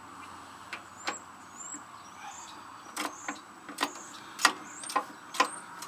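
Sharp metallic clicks of a hand ratchet wrench being worked on a bolt, sparse at first, then about two a second and louder from about halfway in.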